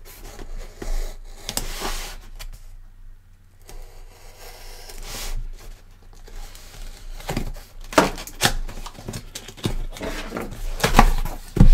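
A hobby knife slicing through packing tape along the seams of a cardboard box, with the cardboard scraping and rubbing under the hands. Sharper knocks and cracks come in the last few seconds as the box is handled and a cut flap is pulled.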